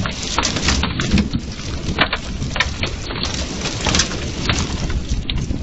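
Quarter-size hail and rain pelting a wooden deck and yard: a steady hiss of rain with many sharp, irregular clicks of hailstones striking.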